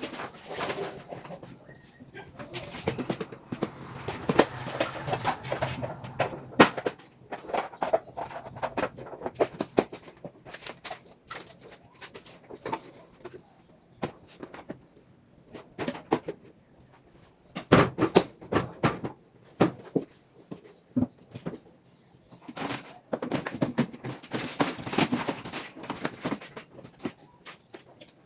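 Household cleaning: repeated knocks and clatter of objects being handled and set down, with stretches of scrubbing or wiping.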